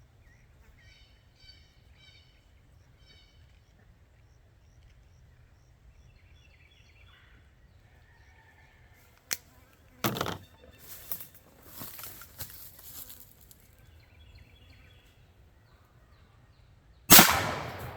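A single loud shotgun blast from a 12-gauge single-shot firing 2 3/4-inch birdshot, sudden and dying away over about a second, near the end. Before it, a sharp click and some brief handling noise about halfway through.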